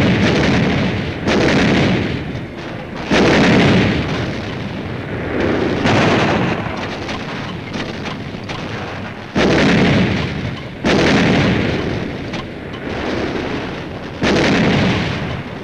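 Artillery guns firing a barrage: about seven heavy blasts at uneven intervals a second or a few seconds apart, each cutting in suddenly and rumbling away.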